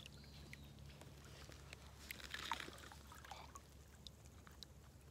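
Quiet, faint water sounds and small handling clicks as a brown trout is lifted out of the stream, with one brief splash about two and a half seconds in.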